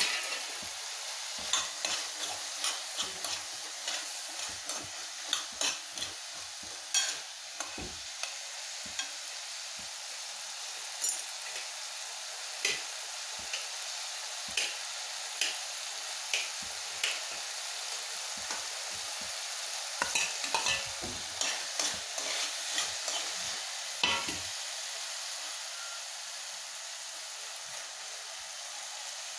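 Chopped food frying in a metal pan, with a steady sizzle throughout. A utensil being stirred through the pan makes frequent sharp scrapes and clicks against the metal, which come thickest about two-thirds of the way through.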